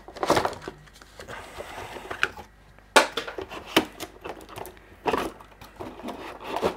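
Packaging being handled as an LED terrarium lamp is pulled out of it: irregular knocks and clicks with some rustling.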